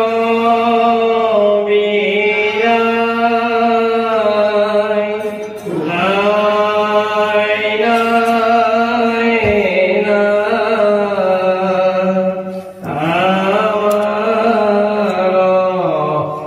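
A man's voice chanting Bhagavata verses in a slow, melodic recitation, holding long notes. The long phrases are broken by short breaths about six and thirteen seconds in.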